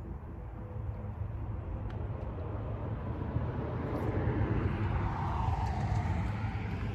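A motor vehicle passing: a rushing noise that swells for a few seconds, loudest about five to six seconds in, then fades, over a steady low hum.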